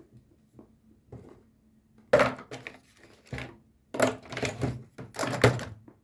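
A grey cockatiel rapping its beak against a hard plastic container lid: three bursts of quick, sharp knocks, about two, four and five seconds in.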